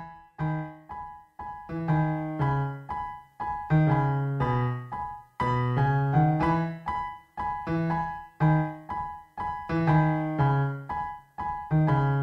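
Background music: a piano tune, its notes struck about two or three times a second, each dying away.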